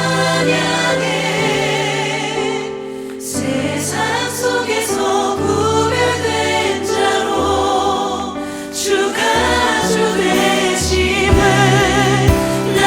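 Choir singing a Korean praise song, with sustained vibrato voices over a held instrumental accompaniment.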